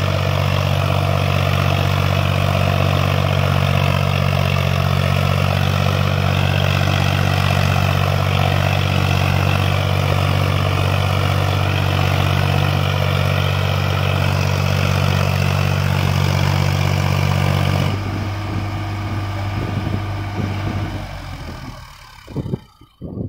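Solis tractor's diesel engine running steadily as the tractor churns through a flooded paddy on cage wheels. The sound changes suddenly about eighteen seconds in, then fades out near the end.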